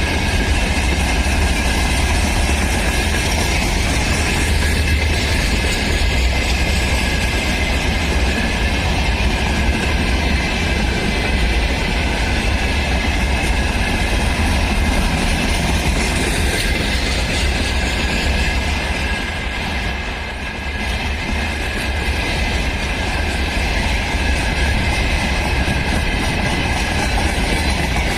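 Freight train hauled by a VL10 electric locomotive rolling steadily past, with wheels clattering over the rails and a heavy low rumble. The sound eases briefly about 20 seconds in.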